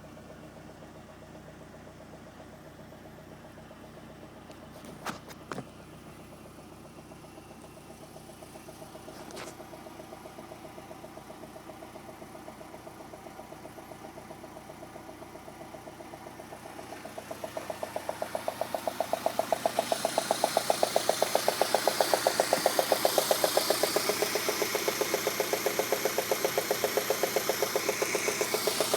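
Peugeot 106 GTI's 1.6-litre 16-valve four-cylinder engine idling with a fast, regular knock, a knock that turned out to be a failed spark plug. A couple of sharp clicks come about five seconds in, and about two-thirds of the way through the engine and its knock become much louder.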